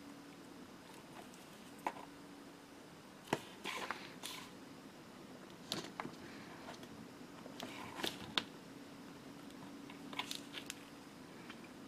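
Small clicks, taps and crinkles from handling small plastic model-kit parts and masking tape, in scattered bursts over a faint steady hum.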